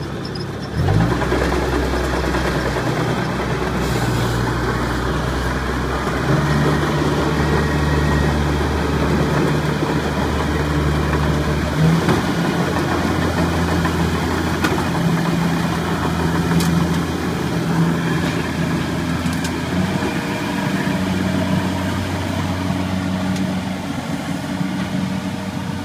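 Diesel engine of a tracked rice combine harvester running. It revs up sharply about a second in, then runs steadily with its engine speed shifting up and down several times.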